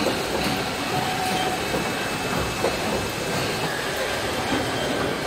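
Steady machine din of an automated car body-shop line, with industrial robots and conveyors running, plus a faint hiss and a few light knocks and ticks.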